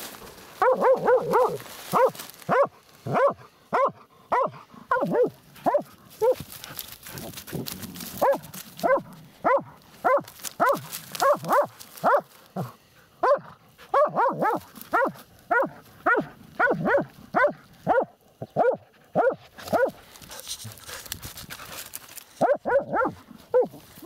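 Hunting laika barking at an animal's burrow: short, sharp barks, about two a second, in runs broken by brief pauses.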